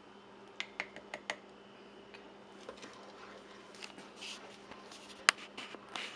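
A few light clicks and taps of a spoon against a ceramic plate as hot blueberry jam is dabbed onto a freezer-chilled test plate, then one sharp click a little after five seconds in, over a faint steady hum.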